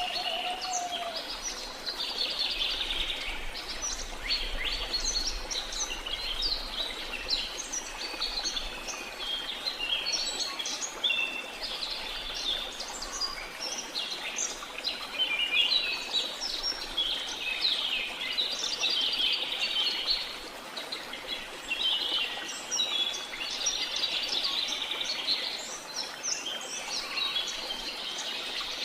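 Many birds chirping and trilling at once, a constant overlapping chorus of short high calls, over a steady rushing hiss of falling water.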